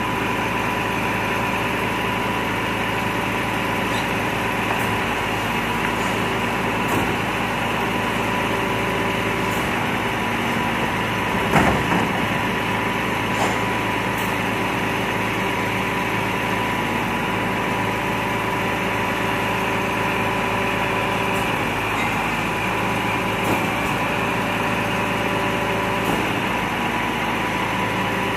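Volvo FM 370 refuse truck's diesel engine idling steadily, with a steady high tone running over the hum. A single loud clank sounds about twelve seconds in.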